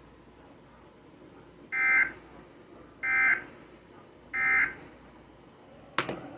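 Emergency Alert System end-of-message data tones: three short identical bursts of warbling digital tones, about a second apart, marking the end of the flash flood warning. A sharp click follows near the end.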